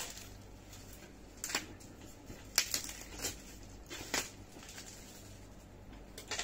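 A plastic-wrapped ironing board being gripped and lifted by its metal iron rest: a handful of short, sharp knocks and crinkles at irregular intervals, over a faint steady hum.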